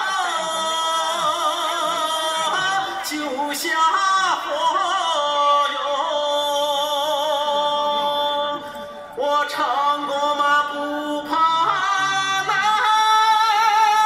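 A woman singing a folk song in a high voice, holding long wavering notes, with a short break a little past halfway.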